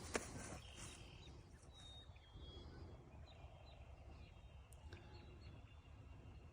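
Near silence: a faint low rumble of wind with a few short, high bird chirps scattered through it, and a single click at the very start.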